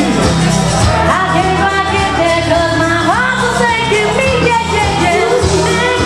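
A woman singing into a handheld microphone over a karaoke backing track, her voice sliding between long held notes, with a rising slide about three seconds in.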